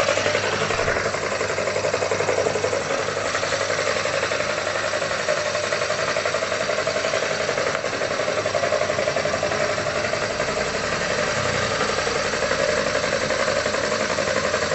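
Electric motor-driven cassava grinder with a stainless steel grinding drum running steadily, a constant motor hum with a fast rattling whirr.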